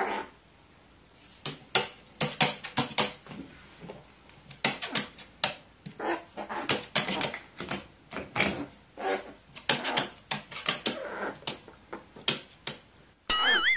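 Pet crow's bill clicking and snapping at a person's fingers in a quick, irregular run of sharp clicks, mixed with short low throaty calls. Near the end a wavering, rising electronic tone comes in.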